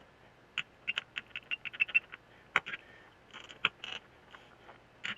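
Screwdriver working a stuck, corroded screw in a Mikuni carburetor body: a string of short, irregular metal clicks and brief scrapes as the tip bites and turns in the screw head.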